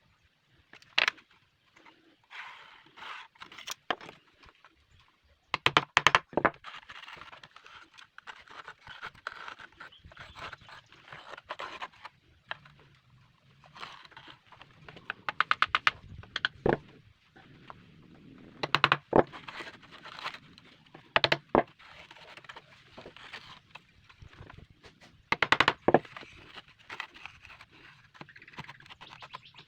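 Hand marking-out on wood: scratchy scraping strokes, like a pencil or compass drawing, broken by sharp taps and knocks of tools set down or handled, with a few quick runs of rapid clicking.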